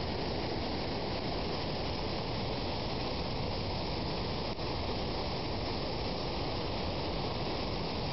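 Floodwater rushing in an overflowing creek: a steady, even noise, with a momentary dip about four and a half seconds in.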